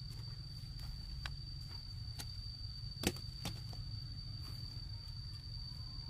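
A wooden stick jabbed down through plastic mulch film to punch planting holes, giving a few sharp clicks and pops. The loudest comes about halfway through. A steady high tone and a low rumble run underneath.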